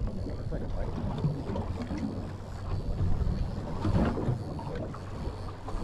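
A fishing boat's engine humming steadily at low speed, with wind noise on the microphone.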